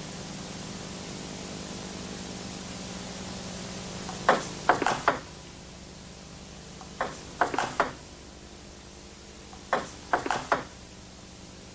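Celluloid table tennis ball clicking off rubber-faced bats and the tabletop in three short exchanges of about four hits each, over a steady tape hiss and low hum.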